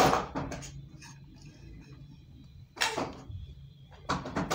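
Short rustling handling noises, in three bursts (at the start, about three seconds in, and near the end), as a hand sprinkles grated cheese over a pizza in a pan, with a faint steady hum underneath.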